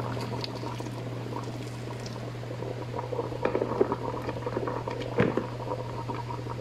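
Chicken pieces in tomato broth boiling in a metal pot, with many small bubbles crackling and popping and one sharper pop about five seconds in. A steady low hum runs underneath.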